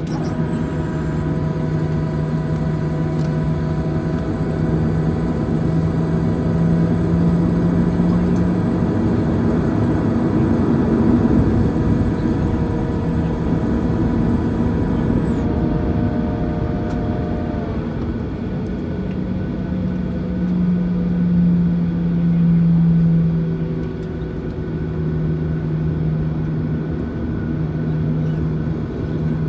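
A Boeing 737-900ER's CFM56-7B engines heard from inside the cabin during taxi: a steady low drone overlaid with several held tones and a high whine. About halfway through, the high whine stops and the other tones shift pitch.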